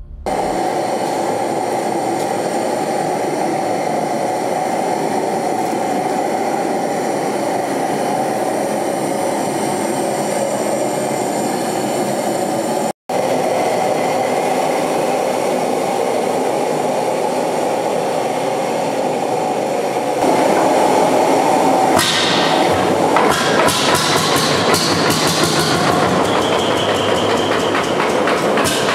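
Propane burner running with a steady rushing hiss as it preheats the hot bulb of a Lanz Bulldog 1506's single-cylinder engine for starting. About two-thirds of the way in it grows louder, and scattered metallic knocks and clicks join it.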